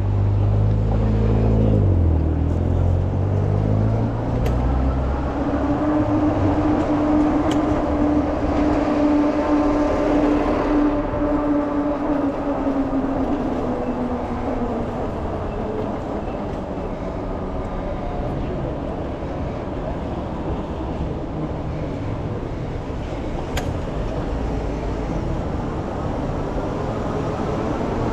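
Continuous vehicle noise: a low hum that drops in pitch in the first two seconds, then a steady tone held for several seconds over a rumble, which gradually eases off.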